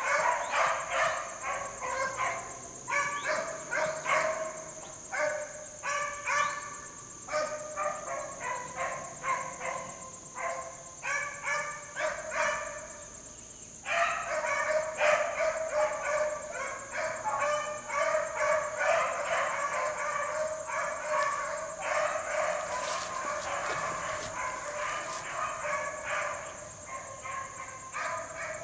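A pack of beagles baying on a running rabbit, several voices overlapping in quick, uneven barks. About twelve seconds in the chorus drops off briefly, then picks up again denser and more continuous.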